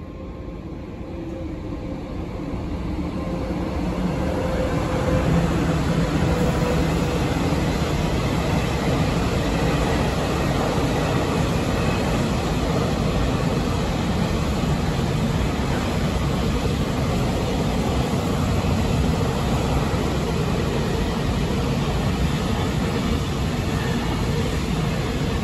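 Freight train of open-top gondola wagons rolling past: a steady rumble of wheels on rail, growing louder over the first few seconds and then holding level.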